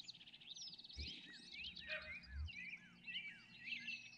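Songbirds singing in the background: overlapping quick whistled slurs and chirps and a short rapid trill, fairly faint. There are two soft low thuds, about a second in and again near the middle.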